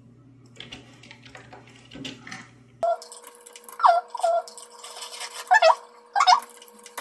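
Faint clicking of typing on a computer keyboard, then about three seconds in background music cuts in: a high, gliding melody over a steady held note.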